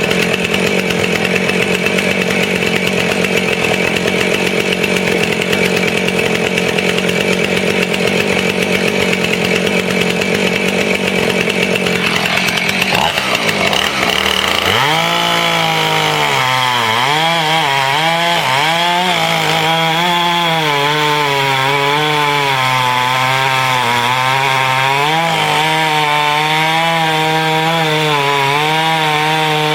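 Husqvarna 450 Rancher's 50 cc two-stroke chainsaw engine running at high revs, then about twelve seconds in its pitch drops and wavers lower as the chain works through a wet ash log.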